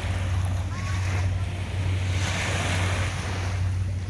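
Small waves lapping and washing onto a sandy shore, one swelling louder about halfway through, over a steady low rumble of wind on the microphone.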